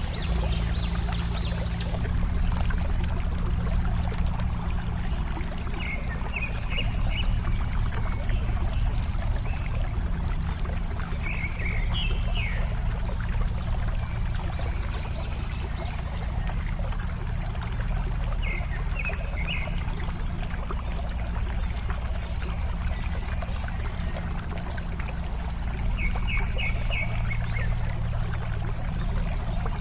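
Water flowing and trickling steadily over rocks. Over it, a bird sings a short phrase of a few quick high notes about four times, every six or seven seconds.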